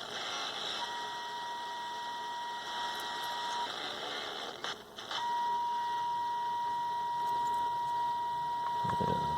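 Panasonic RF-597 portable radio's speaker playing a steady test tone over hiss while its oscillator and RF trimmers are tuned to peak sensitivity. The tone drops out for about a second and a half midway, with a couple of clicks, then comes back a little louder.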